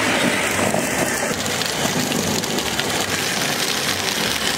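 Power Wheels Grave Digger ride-on toy monster truck driving on pavement: its electric drive whirring and its hard plastic wheels rolling, a steady noisy rumble and hiss.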